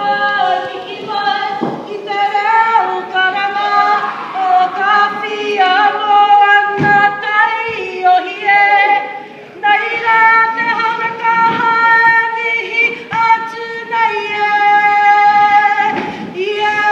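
Kapa haka group singing a Māori song together, women's voices leading, in long held notes.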